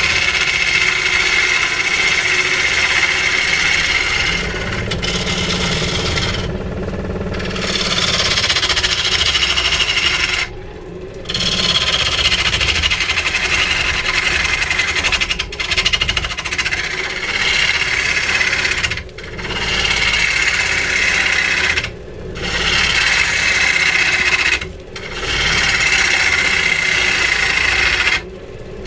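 A tool scraping and cutting into wood with a steady rasping sound, lifting off for short breaks every few seconds while a low hum continues underneath.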